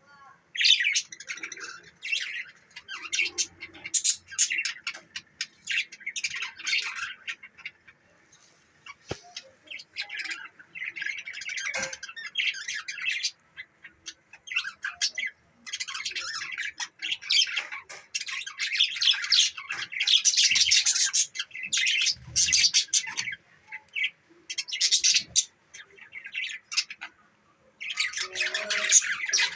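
Budgerigars chirping and squawking in rapid, chattering bouts broken by brief pauses.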